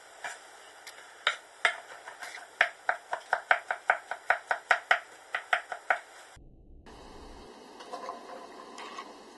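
Kitchen knife chopping fresh baby bella mushrooms on a wooden cutting board: a few scattered strikes, then a fast, even run of about five strokes a second. The chopping stops about two-thirds of the way in, leaving a steady hiss.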